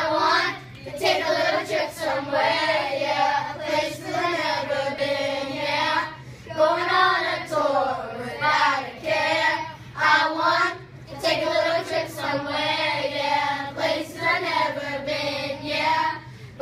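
A group of fifth-grade children singing together in sung phrases.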